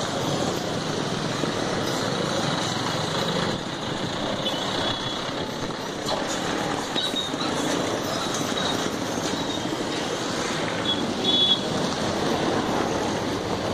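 Steady street traffic noise, with motorcycles and other vehicles running along the road. A couple of brief high-pitched tones come about four seconds in and again near the end.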